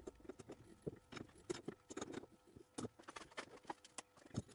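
Faint, irregular clicks and ticks as an M12 tap cuts a thread in a metal part held in a lathe chuck that is turned by hand.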